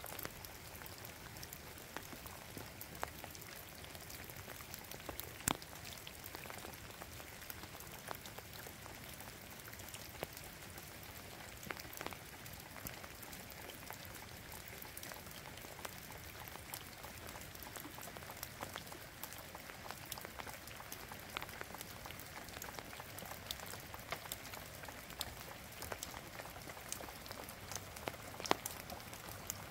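Steady rain falling, with scattered drops ticking irregularly on a hard surface.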